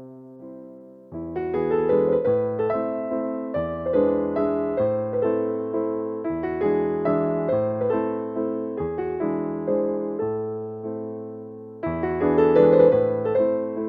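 Background piano music: gentle chords and a melody over a repeating bass line. It swells louder about a second in.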